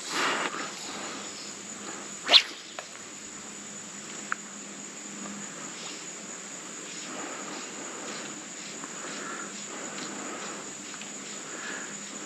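A steady, high-pitched insect chorus drones on over a faint background hiss, with one sharp, loud knock about two seconds in.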